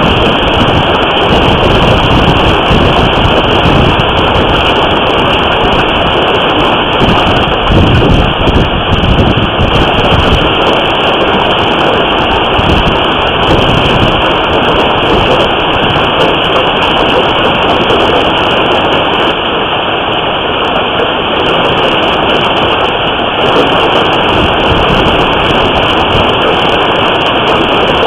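Hailstorm: hail and rain pounding a house and parked cars in a dense, continuous clatter, with low rumbling swells from wind or thunder.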